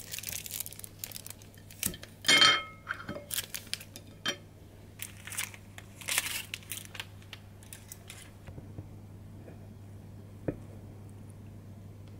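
Crinkling of a plastic film being peeled off a slice of cake, with one loud ringing clink of a metal fork against a ceramic plate a little over two seconds in. It goes quiet after about eight seconds, apart from one light tap.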